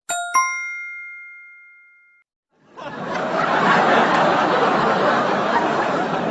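A bright bell-like ding struck twice in quick succession, ringing and fading over about two seconds. Then the chatter of a crowd fades in and carries on.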